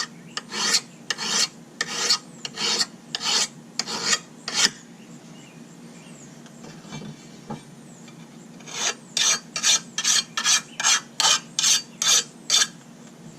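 Metal file rasping across a lawn mower blade's cutting edge to sharpen it, in repeated strokes: about seven strokes, a pause of some four seconds, then a quicker run of a dozen or so strokes.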